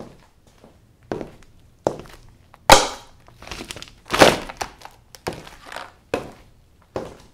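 Platform high heels knocking on a wooden floor and stamping down on white paper cups. The cups crush with two loud crunching cracks, a little under three seconds in and just after four seconds in, among lighter heel knocks.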